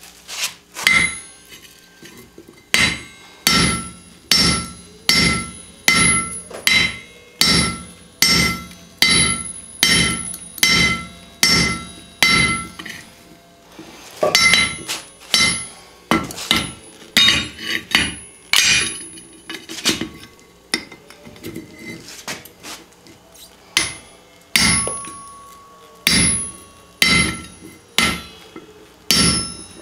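Hand-hammer blows driving a steel drift through the eye of a forged hammer head, struck in a steady rhythm of about one and a half blows a second, each with a metallic ring. The blows pause briefly about halfway through and are lighter for a few seconds after.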